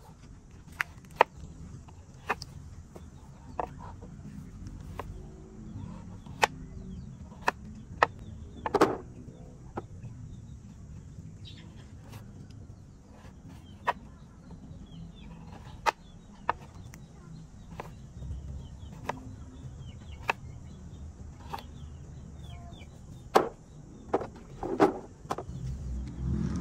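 Kitchen knife chopping raw pumpkin on a wooden cutting board: sharp single chops at uneven intervals, roughly one every second or two.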